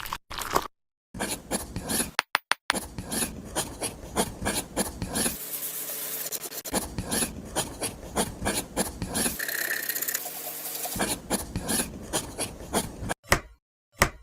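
Repeated short rasping, scraping strokes, as of filing or sanding a small workpiece, several a second, broken by abrupt cuts to brief silence.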